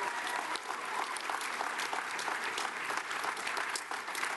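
Large crowd applauding, many hands clapping steadily.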